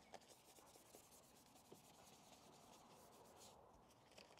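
Faint, quick scratchy rubbing of a detailing brush scrubbing foam around bolts and coil packs in an engine bay, with a few light clicks.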